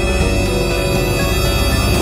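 Background music: long held notes over a steady low bass.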